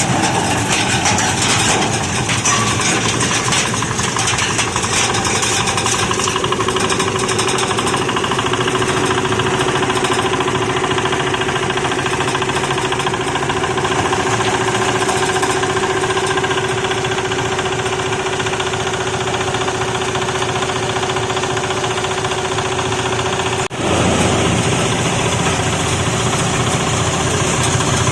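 Waste sorting machine for separating plastic from market vegetable waste, running steadily with a loud mechanical clatter and drone. A steady hum comes in about six seconds in and stops at a momentary break about 24 seconds in, after which the running noise carries on.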